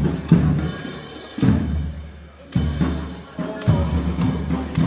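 Parade drums playing a slow, steady beat, with a heavy bass drum stroke about once a second.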